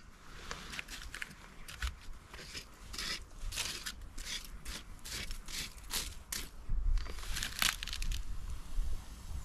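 A stick raking and scraping through the ash of a campfire pit in many quick, irregular, dry scratching and crunching strokes, stirring the old fire's ashes to get it going again.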